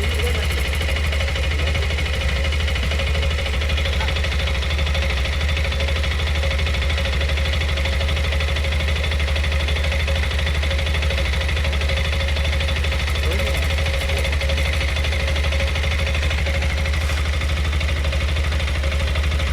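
TVS Apache RTX 300's single-cylinder engine idling steadily with an abnormal metallic clicking, which the owner suspects may be tappet or cam-chain tensioner noise.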